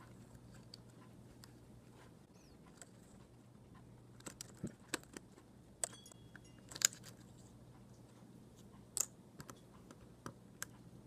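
Small plastic clicks and snaps of a MacBook Pro key cap being levered off its scissor mechanism with a fingernail. The clicks come in two irregular clusters, the sharpest snaps a little past the middle and near the end.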